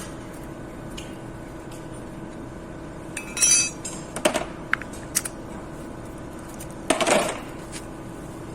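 Metal tools and engine parts clinking and clattering: a ringing clank about three seconds in, a few quick clinks after it, and a longer clatter near the end, over a steady low hum.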